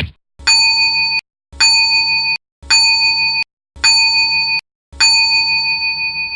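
A bell-like ding sound effect played five times, evenly about a second apart, each a clear metallic tone with bright overtones; the first four are cut off short and the last is left to ring and fade.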